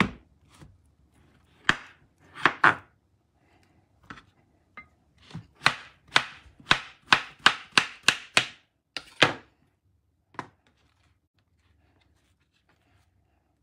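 Kitchen knife cutting through cantaloupe and striking a wooden cutting board: a few separate cuts, then a quick run of about eight chops at roughly two a second.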